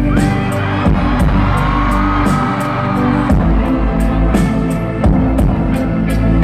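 Live stadium concert music played loud over the PA, with a heavy bass, sustained pitched and gliding tones, and a regular beat of high percussive hits about three a second.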